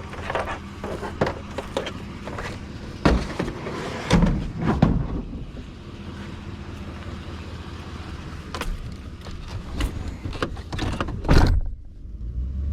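Knocks and clatters of a discarded TV being handled and loaded into a pickup, with the truck's engine idling. A loud thump comes near the end, then a steady low engine rumble.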